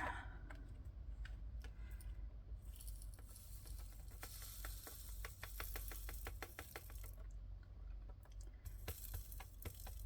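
Diamond painting drills poured into a storage container, a rapid patter of tiny clicks lasting a few seconds in the middle.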